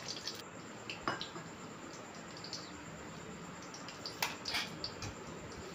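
Green chillies frying in hot oil in a wok: a low, steady sizzle with a few sharp pops and spits, about a second in and again around four seconds.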